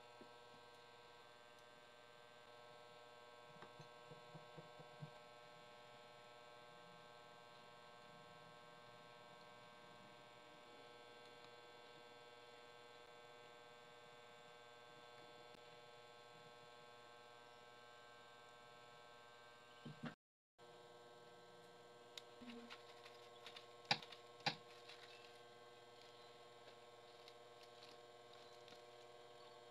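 Near silence with a steady electrical hum. A few faint clicks come about four seconds in, and a short run of sharper clicks and taps comes about two-thirds through, from small parts being handled. The sound cuts out completely for a moment just before those clicks.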